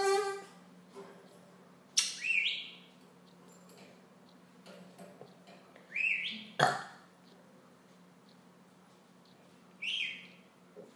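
Budgerigar giving short swooping chirps, three of them about four seconds apart, with a single sharp click between the second and third.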